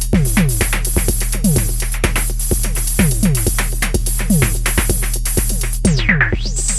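Eurorack modular synthesizer patch played through the Endorphin.es Ghost effects module: a steady low drone under fast repeating clicks and short blips that fall in pitch. Near the end the high end sweeps down and then rises again.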